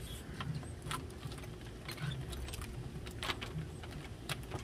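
Scattered small clicks, taps and rustles of a string of Christmas lights being handled and hung against the bus's windows and siding, with two sharper clicks near the end.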